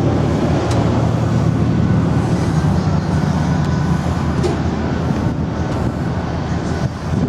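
Engine idling steadily: a low, even rumble.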